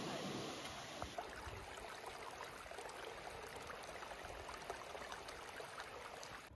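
Running water, a steady rushing like a stream or small waterfall, with many small scattered ticks through it.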